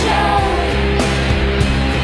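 Rock-tinged pop song with a male singing voice over band backing and a steady beat.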